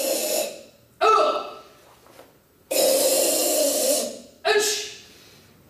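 A karateka's forceful kata breathing: loud hissing exhalations, a short sharp one about a second in, a long one of about a second and a half in the middle, and a shorter one near the end, each starting abruptly and fading out.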